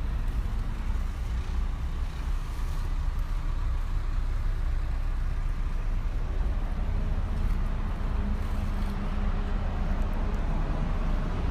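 Steady low rumbling noise that flickers throughout, with no distinct events.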